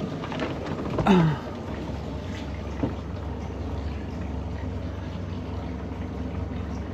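Water running and dripping off a crab pot and its rope as the pot is hauled up out of the creek over the side of an aluminium boat, over a steady low rumble. A short grunt about a second in.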